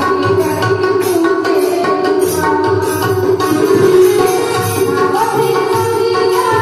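Live devotional bhajan music: a wavering melody line over a steady, rhythmic hand-drum beat.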